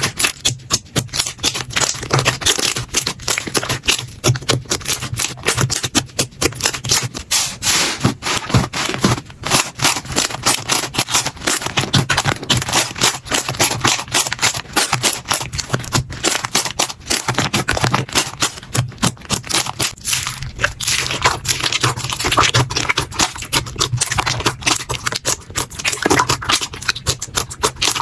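Slime being squeezed and worked by hand, a dense, fast stream of crackling clicks and sticky pops.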